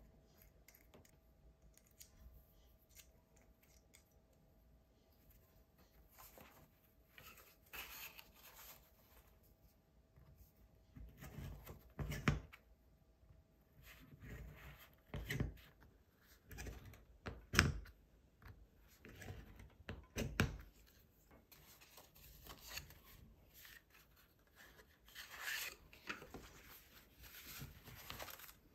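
Handheld screw punch driven through folded kraft-paper signatures, with paper rustling and handling noise and four sharper knocks a few seconds apart in the middle as the punch goes through.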